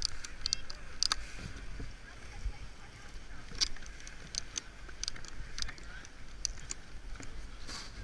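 Snowboard binding straps being ratcheted tight by gloved hands: scattered sharp clicks, a few each second, with no steady rhythm.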